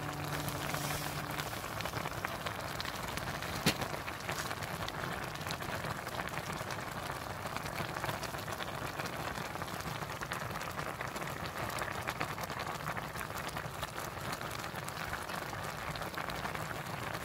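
Pot of instant ramen boiling, a dense crackle of small bursting bubbles, with one sharp click about four seconds in.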